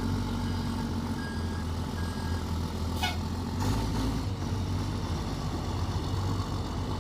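Truck engine running steadily with a low hum, and two short high beeps about a second in.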